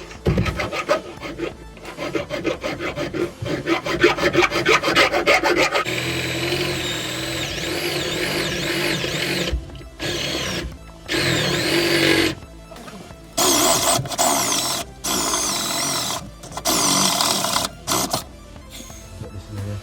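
Tool work on thick sheet metal. For about six seconds it is a fast rasping, rubbing run of strokes, then a steadier grinding stretch, then several short on-off bursts near the end.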